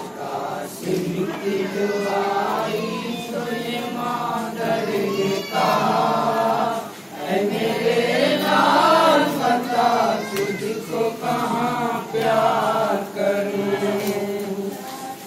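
A boy chanting a Muharram lament into a microphone in long, wavering held notes, with several men's voices joining in chorus.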